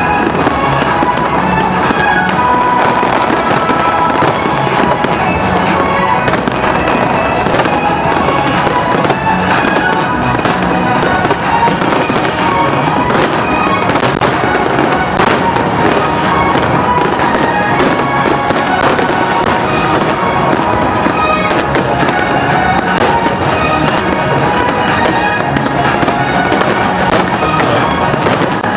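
A fireworks display with many shells bursting and crackling one after another without a break, over loud music playing with the show.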